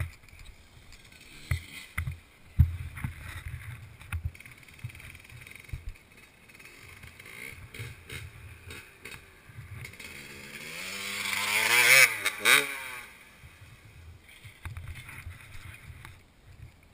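Dirt bike engine revving up close, its pitch and loudness rising for about two seconds and then dropping away. Wind buffeting and knocks on the microphone run underneath.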